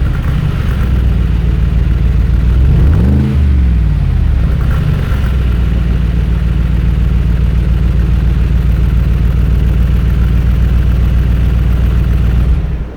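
2019 Mercedes-AMG G63's twin-turbo 4.0-litre V8 exhaust: revs falling back at the start, a quick rev blip about three seconds in, then a steady idle that cuts off suddenly near the end.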